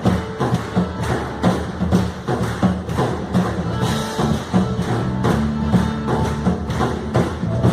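Drum kit playing a steady, quick beat at about four hits a second, with a band's bass and keys sustaining notes underneath: an upbeat worship song in full swing.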